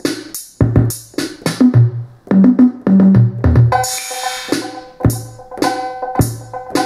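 Native Instruments Maschine drum kit sounds finger-drummed from iPad touch pads: an irregular run of kick and percussion hits with a few short low pitched notes. About halfway through, a held pitched sound with a bright hiss on top comes in under the hits.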